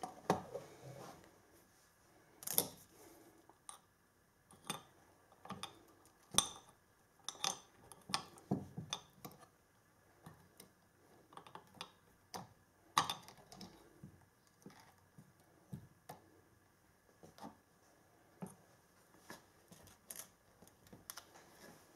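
Metal hand tools, a soldering iron and a pair of pliers, being set down and handled on a plate. The result is irregular light clicks and knocks of metal on the plate, with a few louder knocks among them.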